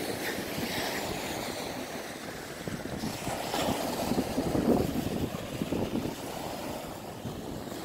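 Surf washing onto a rocky beach, with wind on the microphone; the wash swells louder around the middle.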